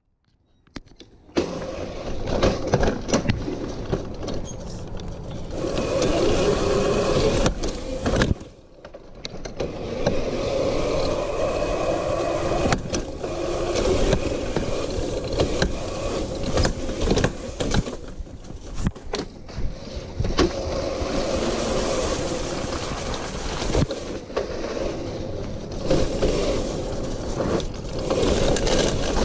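Razor electric dirt bike being ridden: the electric motor and chain drive whine steadily, the pitch wavering as the speed changes, with frequent knocks and rattles from bumps. It starts about a second in and dips briefly about eight seconds in.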